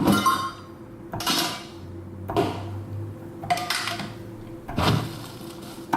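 A series of short metal clanks and rattles from garage objects and tools being handled, knocked and dropped, about six separate hits roughly a second apart, each with a brief ring, over a faint steady hum.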